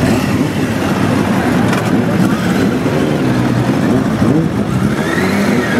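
Motorcycle engines running in a steady low rumble, with a crowd's voices mixed in.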